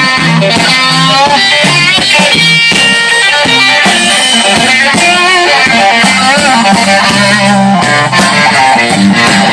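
Live blues band playing amplified through PA speakers, with electric guitar to the fore over bass and drums.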